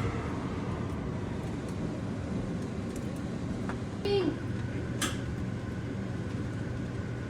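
Kitchen range-hood exhaust fan running with a steady low hum. A brief squeak about 4 seconds in and a sharp click about a second later.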